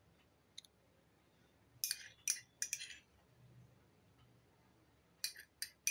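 Steel spoon clinking against glass as thick malai cream is scooped from a glass bowl onto glasses of lassi. There is one light click, then a quick run of clinks about two seconds in and a few more near the end.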